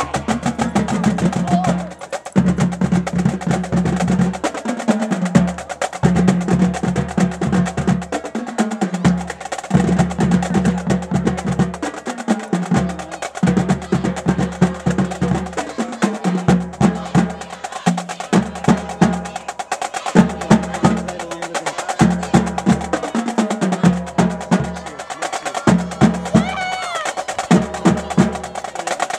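High school marching band playing: saxophones and clarinets sounding sustained notes over a steady, driving drum beat.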